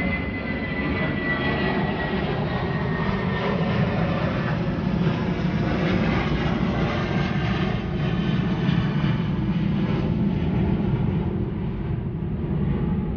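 Steady engine drone of a passing aircraft overhead, swelling slightly in the middle and fading toward the end.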